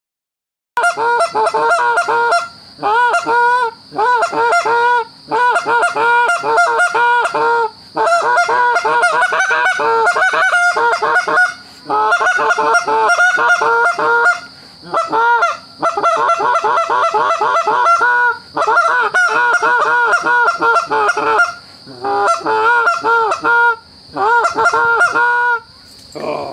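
A flock of Canada geese honking almost without a break, in runs of calls cut by short pauses, beginning about a second in. Crickets chirr steadily underneath.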